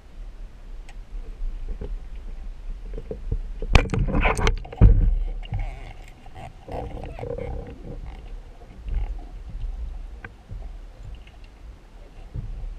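Underwater speargun shot: a quick cluster of sharp clicks and knocks about four seconds in, ending in a heavy low thump, then softer knocking and rumbling over the steady low wash of the sea.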